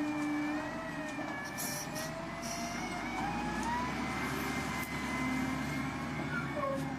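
Wheel loader running, with a whine whose pitch wavers up and down as the bucket is worked.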